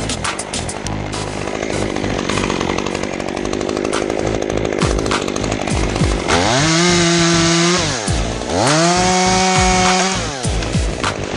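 Chainsaw cutting through wood under load, then revved up to full throttle twice, each rev held for about a second and a half before dropping back.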